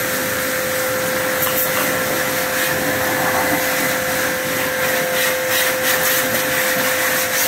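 APR electric pressure washer running steadily, a constant motor hum under the hiss of its water jet, as it blasts caked, cement-like dirt off a scooter without soap.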